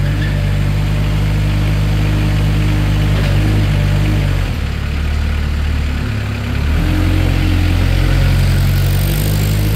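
Moffett M55 piggyback forklift's Kubota V2203 four-cylinder diesel engine running steadily, its note dropping and shifting from about four to seven seconds in as the hydraulics move the mast in and out.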